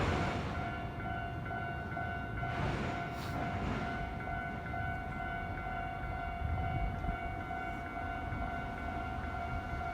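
Japanese railway level-crossing warning bell ringing steadily, over the low rumble and hiss of a train on the line.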